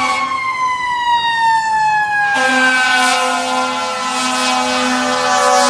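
Fire truck siren winding down, one long wail whose pitch falls slowly and steadily, with a low steady tone that breaks off and comes back a few times as the apparatus approaches.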